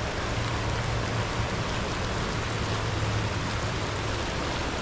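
Swollen, fast-flowing river rushing steadily.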